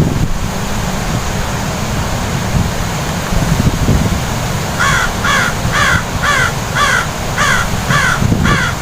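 A steady low rumble, with a bird giving a quick run of about eight short, harsh, falling calls, about two a second, starting about halfway through.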